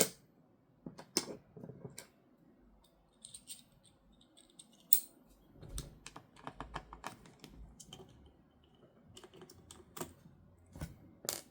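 Irregular light clicks and taps of a precision screwdriver and small parts being handled inside an opened MacBook, with a few sharper knocks spaced several seconds apart.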